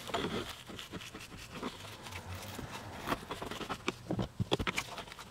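Dry leaves packed in a car's cabin air filter crackling and crunching as the filter is squeezed and scraped with a flathead screwdriver: an irregular run of small clicks and scratches.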